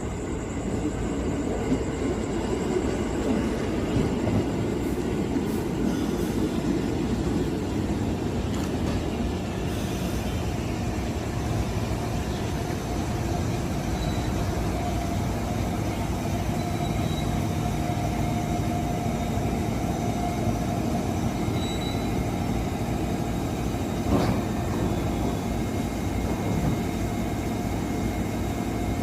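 An ex-JR 203 series electric commuter train running on the rails: a steady rumble of wheels and running gear, with a faint whine in the middle and a single sharp knock about 24 seconds in.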